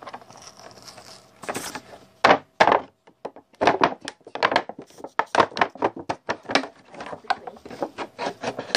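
Small plastic toy bird figure tapped and hopped along a play-set floor by hand: a run of light knocks, several a second, starting about two seconds in.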